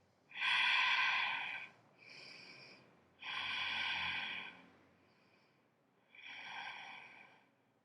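A person breathing slowly and audibly through a held yoga pose: four long breaths, the first and third louder than the other two.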